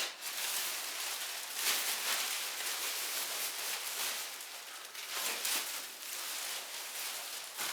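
Plastic sheeting being handled and put up, crinkling and rustling unevenly in swells and lulls.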